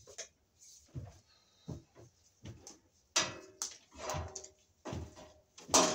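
Yellow 12-gauge non-metallic sheathed (Romex) cable scraping and squeaking as it is pulled by hand through the top of a breaker panel, in a series of short scrapes, the loudest near the end.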